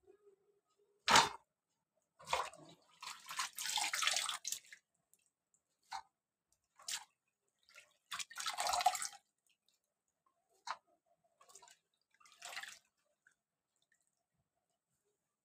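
Sliced onions being rinsed by hand in a plastic tub of water: water splashing and sloshing in short, irregular bursts as the hands squeeze and swish the onion slices, the loudest a short sharp splash about a second in.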